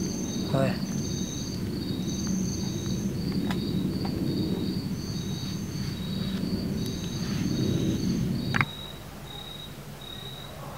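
Crickets chirping in repeated pulsed trills over a low rumbling background noise. About eight and a half seconds in there is a sharp click and the rumble drops away abruptly, leaving the crickets alone.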